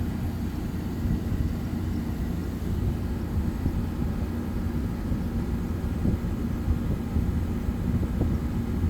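Kenmore 8,000 BTU window air conditioner running with its compressor on: steady fan and rushing air with a low, even hum.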